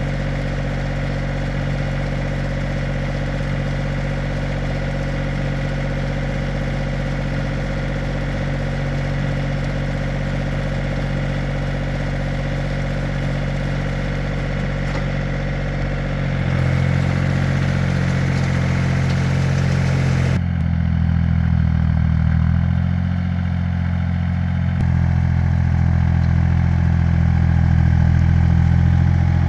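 Two-wheel tractor (hand tiller) engine running steadily with a low, even hum. It gets louder past the halfway mark, and its tone changes abruptly a few seconds later.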